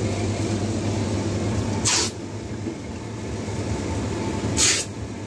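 Steady low hum of supermarket refrigeration units, with two short hissing bursts, one about two seconds in and one near the end.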